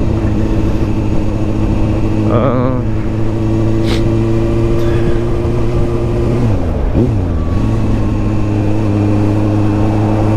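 Suzuki GSR750's inline-four engine running at steady revs while riding, with wind rush on the microphone. About six and a half seconds in, the revs briefly drop and then pick up again.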